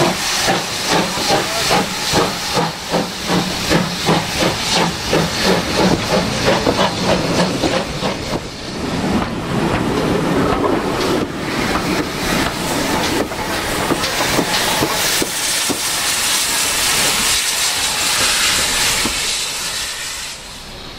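Steam locomotive pulling a train away, its exhaust chuffs coming quicker over the first eight seconds, then the coaches rolling past with a steady rush that fades near the end.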